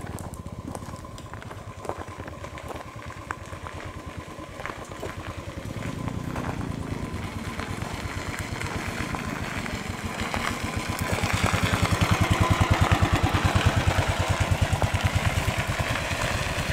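Motorcycle engines approaching along a gravel track. The even beat of the exhaust grows louder from about halfway in and is loudest over the last few seconds as the bikes draw close.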